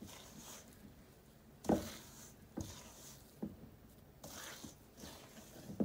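Sticky, wet playdough being squeezed and kneaded by hand in a stainless steel mixing bowl: irregular soft squelches and knocks, the loudest a little under two seconds in.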